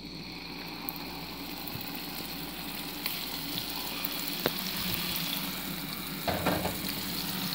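Beef steaks frying in olive oil in a frying pan: a steady sizzle that grows slightly louder as a second steak is laid in, with a few light clicks and a brief clatter near the end.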